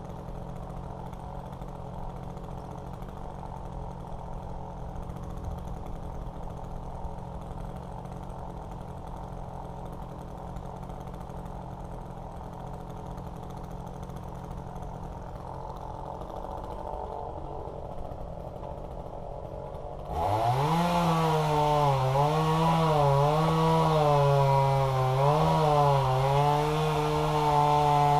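Chainsaw running steadily at a moderate level, then about 20 seconds in a chainsaw revs up sharply and runs much louder, its pitch dipping and recovering over and over as it cuts into wood.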